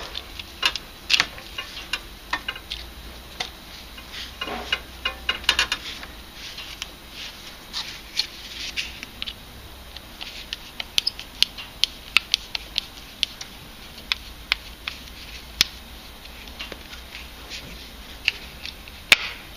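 Scattered light clicks and taps of a screwdriver and hands working the plastic back cover of a hot tub circulation pump, thickest in the middle, with a brief rustle of handling a few seconds in.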